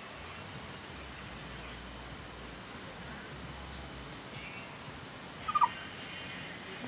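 Domestic turkey giving one brief call of a few quick notes about five and a half seconds in. Otherwise there is only quiet, steady background noise.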